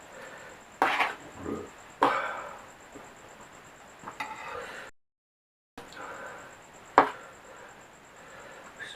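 Close-up mukbang eating sounds: a person eating a large plate of mie goreng instant fried noodles, with a few sudden mouth-and-utensil bursts and one sharp clink about seven seconds in. The sound drops out briefly near the middle.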